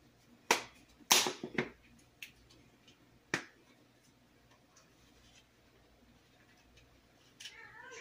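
Sharp plastic clicks and taps of spice-container lids and a measuring spoon: a handful in the first second and a half and one more a couple of seconds later. Near the end a cat gives one drawn-out, wavering meow.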